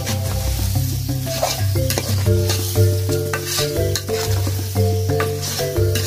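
Vegetables sizzling in a pan and being stirred, with irregular scraping strokes, under background music with a stepping bass line.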